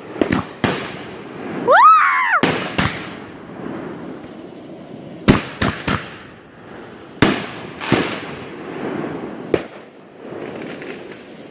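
Backyard consumer fireworks going off: a string of sharp bangs and pops, some in quick pairs and triplets, with a firework's whistle rising and then falling about two seconds in.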